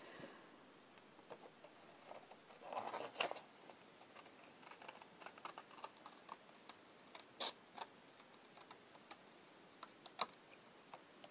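Hand scissors cutting cardstock: faint, irregular snips and clicks, with a brief louder rustle of the card about three seconds in.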